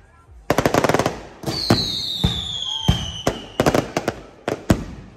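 Aerial fireworks display: a rapid rattle of crackling reports about half a second in, then a whistle falling in pitch over about a second and a half, with a string of single sharp shell bursts through the rest.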